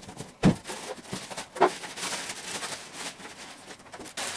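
Cardboard box and styrofoam packing handled while a PC tower case is unpacked: a knock about half a second in, a lighter one about a second later, and rustling and scraping between.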